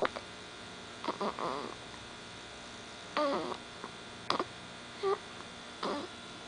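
Hiccups repeating about once a second, five or six short catches, some with a small squeaky pitched sound, over a steady electrical hum.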